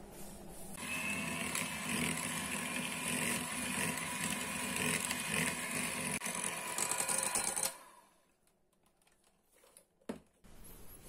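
Electric hand mixer running, its beaters whisking eggs into a butter-and-sugar batter in a glass bowl; it starts about a second in and stops suddenly after about seven seconds, followed by a single click near the end.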